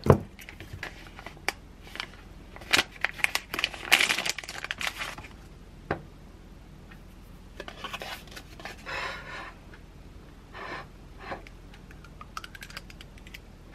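Hands handling food packaging at a counter: plastic wrapping crinkles and rustles in spells as a brownie is unwrapped and a yogurt tub is opened, with scattered light clicks and taps. A sharp knock right at the start is the loudest sound.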